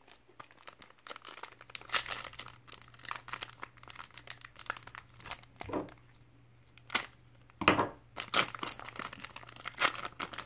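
Foil trading card pack wrapper crinkled in the hands and torn open: a run of irregular crackles and rips, busiest in the last few seconds.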